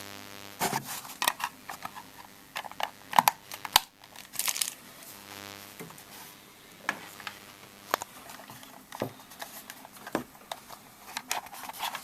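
Handling of a plastic home phone base and its battery: scattered sharp plastic clicks and knocks with some crinkling, over a faint steady hum.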